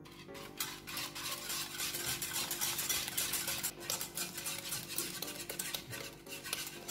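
Steel wire whisk beating a runny egg-and-sugar mixture in a nonstick saucepan, a fast, continuous run of scraping, clicking strokes of the wires against the pan.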